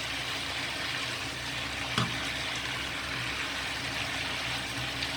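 Cabbage, tomato and wood ear fungus sizzling steadily in a wok over medium-high heat as they are stir-fried, with a single sharp knock about two seconds in.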